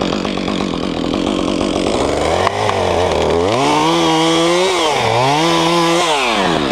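Two-stroke chainsaw running at low speed, then revving up to full throttle about three and a half seconds in. It dips briefly once and revs back up, then drops back near the end.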